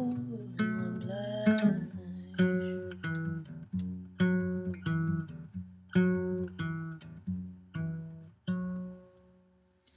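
Classical guitar fingerpicked, a plucked note or chord about every half second, spacing out toward the end until a final chord rings and fades: the close of the song. A woman's voice sings briefly in the first couple of seconds.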